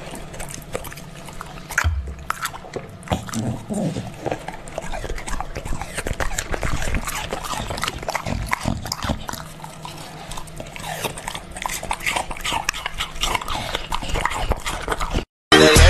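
A dog making short pitched sounds that glide up and down, among many small clicks and taps. The sound cuts off suddenly near the end.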